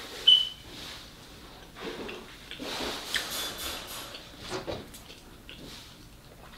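Close-miked eating mouth sounds and finger licking, with a brief high-pitched squeak about a third of a second in that is the loudest sound.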